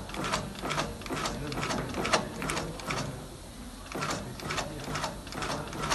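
Industrial sewing machine stitching through a leather sandal, its needle stroking in even clicks about three a second, with a short pause about halfway before it starts again.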